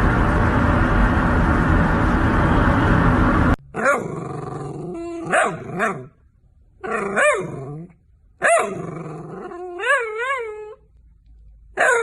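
A loud steady rushing noise that cuts off abruptly about three and a half seconds in, followed by a dog vocalizing in about six short calls with bending, wavering pitch, howl-like and whining, some with a growl in them.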